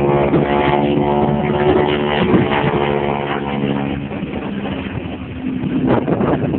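Engine of a World War Two-era propeller aircraft flying an aerobatic display overhead, a steady drone of even pitch that fades after about four seconds as it draws away.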